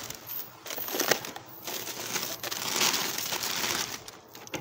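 Plastic bags and rubbish rustling and crinkling as they are rummaged through by hand, with a sharp knock about a second in.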